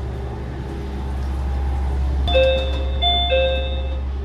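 Diesel railcar engine idling steadily, with an electronic door chime of two ringing notes sounding twice a little over two seconds in.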